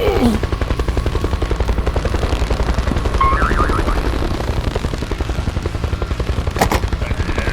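A machine running with a rapid, even chugging pulse. There is a sharp click about six and a half seconds in.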